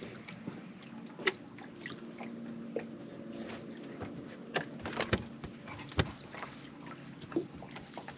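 Faint steady hum from a bass boat's bow-mounted trolling motor, with scattered sharp clicks and knocks on the boat. The loudest knocks come about a second in and about six seconds in.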